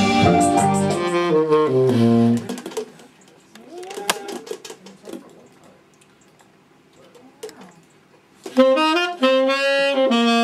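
Music with deep bass and keyboard-like notes plays for about two seconds and breaks off, leaving a few quieter seconds. Then a saxophone comes in loud near the end, playing long held notes.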